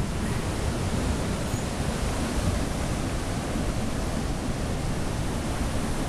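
Heavy surf breaking on the beach, a steady rush of waves with wind rumbling on the microphone.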